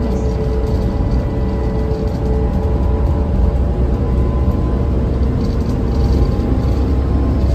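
Interior of a 2008 New Flyer DE40LFA diesel-electric hybrid bus at highway speed: a steady low rumble from the Cummins ISL diesel and the road, with several steady whining tones over it.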